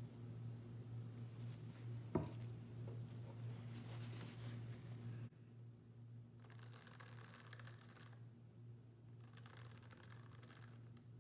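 Faint scratchy strokes of a cut hair-comb piece dragged through wet acrylic paint on canvas, twice in the second half. A steady low hum underneath, and one sharp click about two seconds in.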